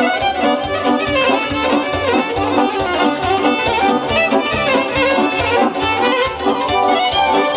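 Romanian live party band in an instrumental break: violin playing the lead melody over a steady, fast electronic-keyboard beat, with a Roland accordion.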